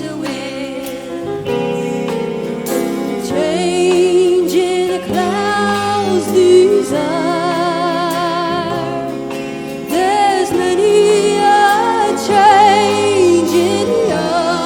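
Country band playing live: a lead melody that wavers and slides in pitch over steady chords, with light cymbal ticks.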